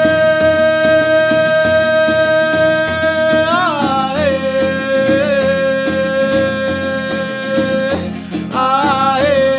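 Acoustic guitar strummed in a steady rhythm under a melody of long held notes that bend slightly in pitch, with the melody moving to a lower note about four seconds in.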